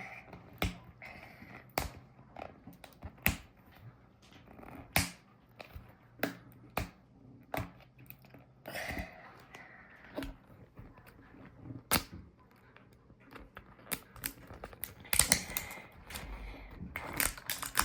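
Plastic toy packaging being handled: irregular sharp clicks and taps, with stretches of rustling about nine seconds in and again near the end.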